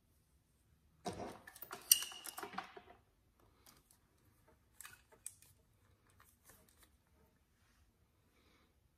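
A curling iron and hair being handled: rustling and clicks, loudest in the first few seconds with a sharp click about two seconds in, then fainter scattered clicks.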